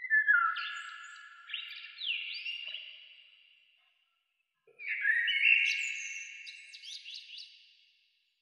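Short intro jingle of high, chirpy gliding notes, played as two phrases with a pause between them. Each phrase starts sharply and fades away over a few seconds.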